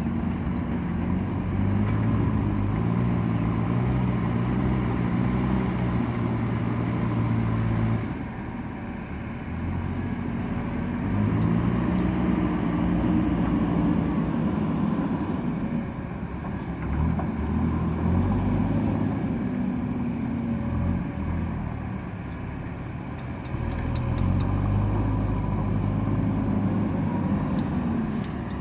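Diesel engine of a heavy earthmoving machine working under load. It drops back and picks up again several times as the load changes. A short run of quick clicks comes near the end.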